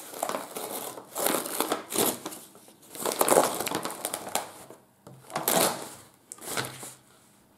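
Brown paper packaging crinkling and rustling in irregular bursts as a soft parcel is opened and its contents pulled out, dying away near the end.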